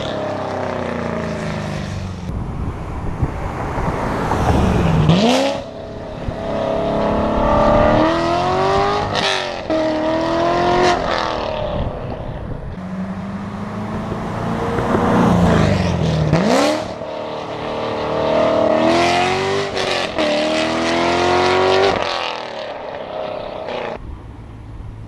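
2014 C7 Corvette's 6.2-litre LT1 V8 through Kooks long-tube headers and a catless X-pipe. It is loud under hard acceleration in two pulls, the pitch climbing through each gear and dropping at each upshift, and it fades near the end.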